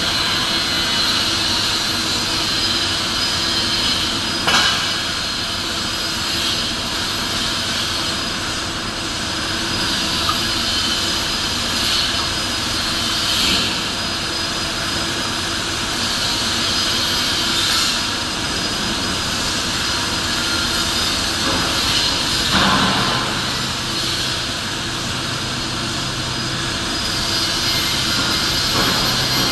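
Loud, steady rushing noise of machinery in a large steel fabrication shop, with a few short metal knocks. A low hum sets in about two-thirds of the way through.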